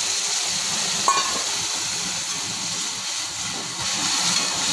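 Boiled jute leaves sizzling in hot oil with fried cumin, garlic and chilli in a metal kadai, a steady hiss as they are stirred with a metal spatula. There is a short clink about a second in.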